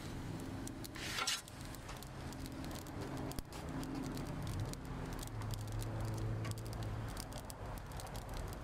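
Gas-fired Ooni Koda 16 pizza oven running with a steady flame, light crackling and ticking from the calzone baking inside.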